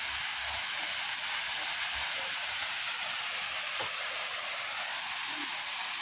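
Artificial garden waterfall splashing over rocks: a steady, even rush of falling water.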